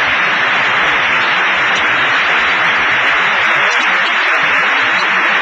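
Large audience applauding in a dense, steady clatter that does not let up.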